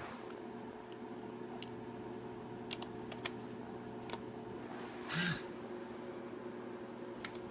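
Scattered computer keyboard keystrokes over a steady electrical hum, with a short louder burst about five seconds in. The keystrokes are typical of entering new angle values to step a servo-driven thumb.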